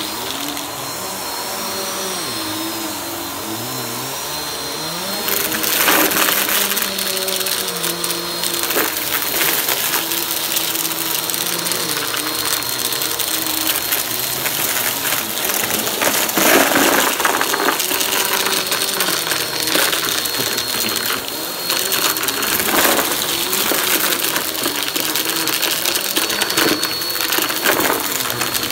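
Upright bagless vacuum cleaner running with a steady high whine while it sucks up shredded tissue paper from a rug, the paper crackling and rattling through the intake in repeated bursts from about five seconds in.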